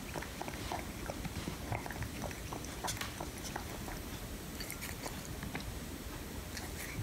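Cat lapping water from a drinking glass: a run of quick, irregular wet clicks from its tongue.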